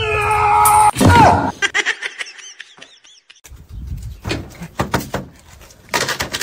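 Cat meowing in two drawn-out parts that sound like "okay", the second part falling in pitch. Scattered knocks and thumps follow a couple of seconds later.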